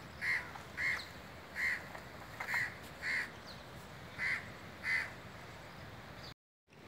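A bird calling: seven short, clipped calls of the same pitch, spaced about half a second to a second apart, over a faint outdoor background. The sound cuts out briefly near the end.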